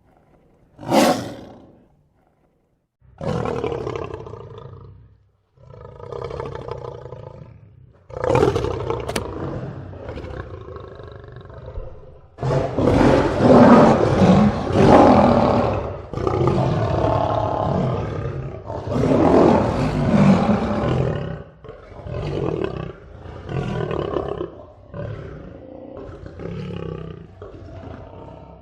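A lion roaring: a short sharp call about a second in, then a series of deep roars that build to the loudest, longest stretch in the middle, ending in a run of shorter grunts about a second apart.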